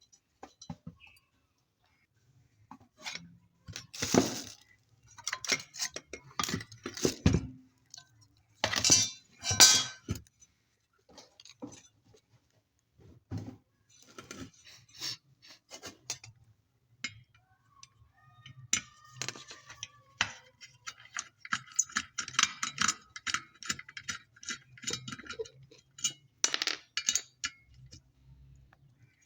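Small metal parts and hand tools clinking and knocking against the body of an electric clothes iron during repair work, with a few louder knocks and, later, a long run of fast rattling ticks.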